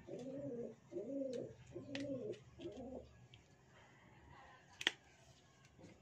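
A dove cooing, several soft coos in a row that stop about three seconds in, then a single sharp click near the end.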